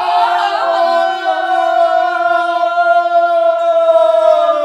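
Singing voices hold one long, steady, high sung note.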